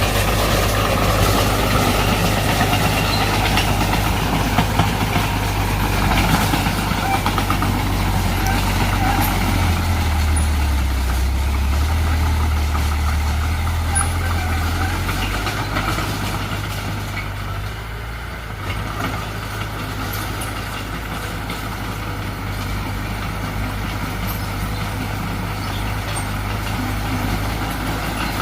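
Heavy diesel earthmoving machinery running steadily at work, its low engine note growing stronger and deeper for a few seconds around the middle.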